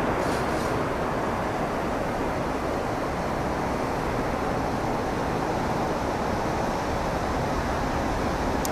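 Pilatus PC-12 NG's single Pratt & Whitney PT6A turboprop, a steady distant rush as the aircraft rolls out along the runway after touchdown.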